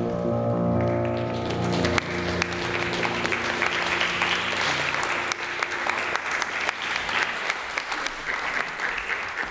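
Music ends on a held chord about two seconds in, and a room of watching dancers breaks into applause, many hands clapping, which thins out toward the end.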